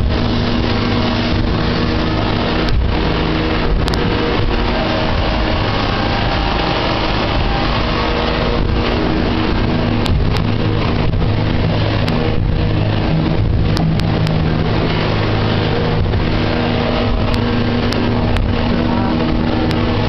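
KS-700 motor launch's engine running steadily under way, its even hum mixed with rushing water and wind noise, with a few brief clicks.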